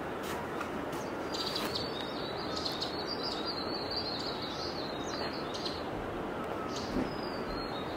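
Small birds chirping and twittering in quick high notes over a steady outdoor rush of background noise.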